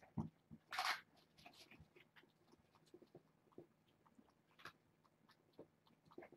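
Quiet room with scattered soft clicks and taps, and a brief rustle about a second in.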